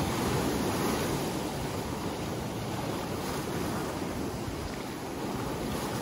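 Sea surf washing in over a pebble beach and around boulders, a steady rush of breaking waves that eases a little toward the end.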